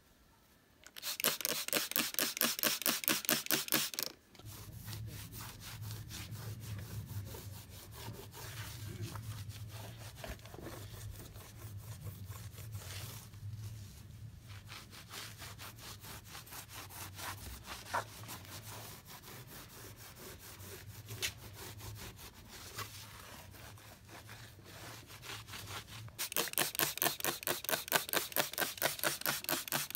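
Cloth wiping a motorcycle's chrome exhaust and spoked wheel by hand, a fast back-and-forth rubbing. It is loud for about three seconds near the start and again near the end, with quieter wiping and a low steady hum in between.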